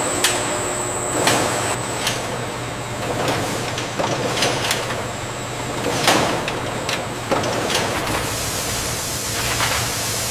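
Noodle production-line machinery running: a steady hum and hiss with irregular sharp clanks about once a second, and a thin high whine over the first couple of seconds.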